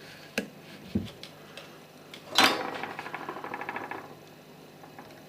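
A couple of sharp small clicks of tools at the workbench during soldering of surface-mount parts, then, about two and a half seconds in, a sudden burst that goes on as a fast, evenly pulsing buzzing rattle for about a second and a half before stopping.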